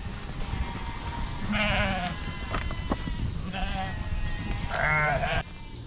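Sheep bleating: three separate quavering bleats, the last one the loudest.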